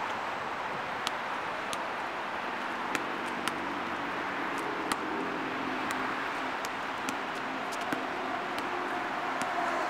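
Steady road traffic noise from the surrounding city and bridge, with a hum rising out of it in the middle seconds and a few scattered faint sharp ticks.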